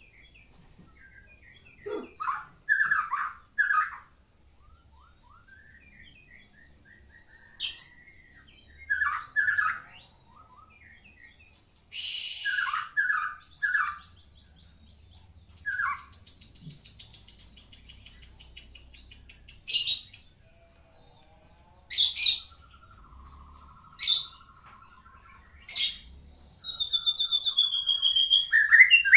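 White-rumped shama (murai batu, Medan type) singing: short loud phrases separated by pauses of a few seconds, with quieter rapid trills in between, then a continuous rapid run of song near the end. The song is full 'isian', made up of phrases copied from other birds.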